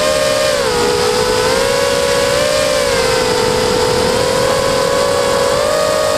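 FPV quadcopter's electric motors and propellers whining loudly, heard from the craft's own camera. The pitch dips briefly about a second in and rises a little near the end as the throttle changes.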